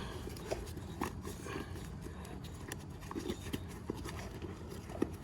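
An inner tube and tyre being worked into place by hand: irregular soft knocks and rubbing, with a few short clicks scattered through.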